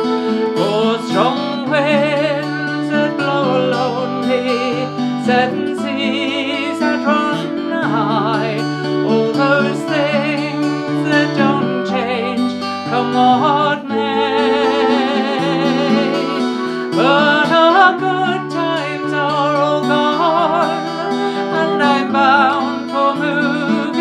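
Acoustic folk music: an acoustic guitar accompanies a flute melody played with vibrato, with a woman singing along.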